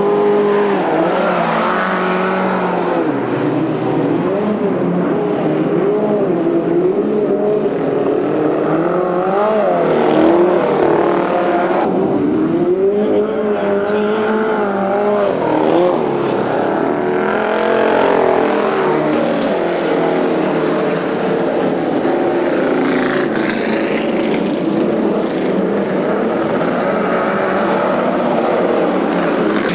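Vintage speedway midget race cars lapping a dirt track, one after another, their engines revving up and down in pitch as they drive through the turns.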